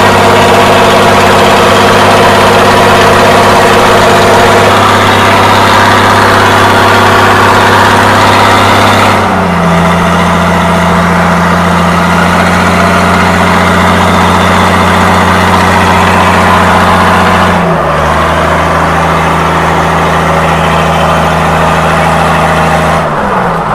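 Mitsubishi 6D16 inline-six diesel boat engine running loudly under way. Its speed steps down about nine seconds in and again about eighteen seconds in, then drops further near the end.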